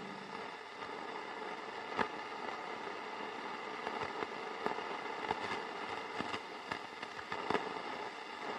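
Ambient electronic soundscape: a faint, steady static-like drone with scattered crackles and clicks, and no clear beat or melody.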